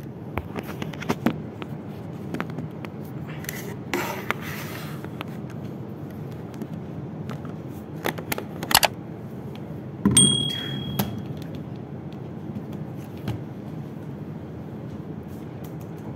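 Desk handling noises while setting up a laptop: scattered clicks, knocks and scrapes, with a longer rustling scrape about four seconds in and a short electronic beep just after ten seconds, over a steady low hum.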